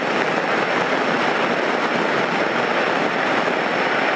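Steady drone of a single-engine light airplane's piston engine and propeller, with rushing wind, heard inside the cockpit in level flight.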